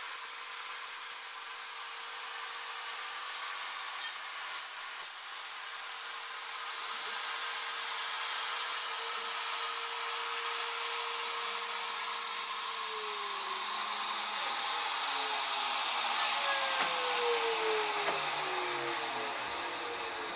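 Wood router on a CNC machine running and cutting through a pine board, a steady high whine over a rushing cutting noise. About twelve seconds in, the whine starts falling in pitch and keeps dropping to the end.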